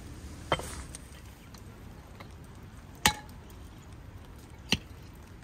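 Hatchet chopping firewood into kindling: four sharp chops into wood, unevenly spaced.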